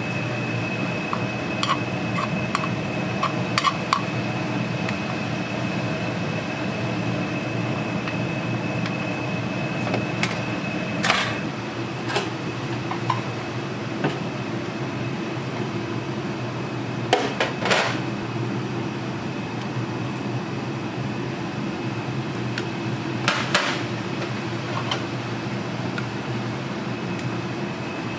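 Restaurant kitchen ambience: a steady fan hum with a thin high whine, broken by a few sharp clinks and knocks of dishes and utensils.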